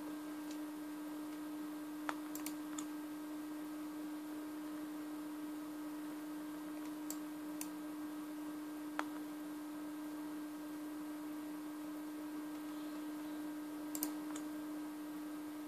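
Sparse clicks from an ASUS Eee PC 900 netbook's controls as it is operated by hand, a few at a time every few seconds, over a steady hum.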